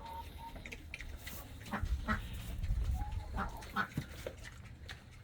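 A hog eating an apple, with scattered short crunches and brief grunts, and a low rumble about two seconds in.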